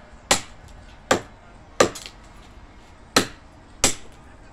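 Machete blows chopping into a thick wooden pole: five sharp strikes, with a longer pause of about a second midway between the third and fourth.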